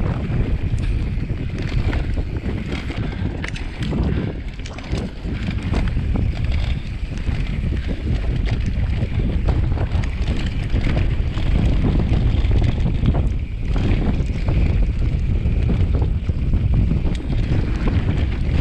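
Wind buffeting the microphone on a moving mountain bike, with many small knocks and rattles from the bike rolling over rough trail.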